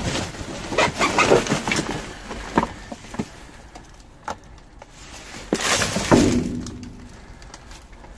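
Clattering and rustling of discarded groceries and packaging being shifted about inside a dumpster: a dense run of knocks at first, a few separate knocks, then another short burst of rustling and clatter about six seconds in.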